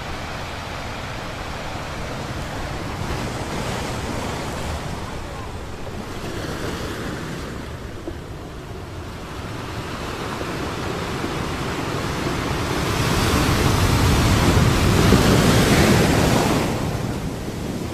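Sea surf washing in: a steady rushing noise of waves that swells louder in the last third and falls back near the end.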